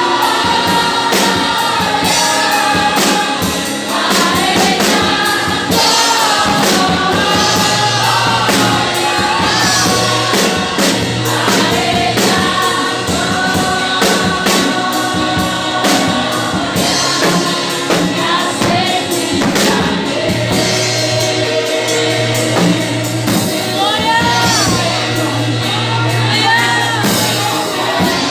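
Gospel music with a group of voices singing over a band with a steady beat and a sustained bass.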